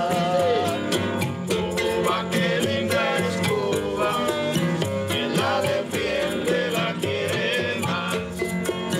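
Cuban son played by a small acoustic group: guitars strumming and picking a melody over a steady beat of shaken maracas, with a plucked marímbula on the bass.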